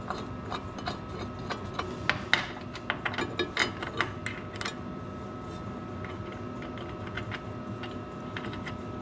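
Irregular metal clicks and clunks as the swivel vise on a horizontal band saw is loosened, turned and set to a 45-degree angle, busiest in the first half, over a steady faint high hum.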